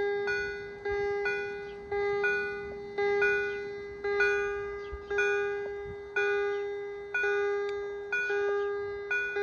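A railway level crossing's warning bell ringing steadily in paired strokes, about one pair a second, each stroke dying away before the next. It sounds while the crossing is activated for an approaching train.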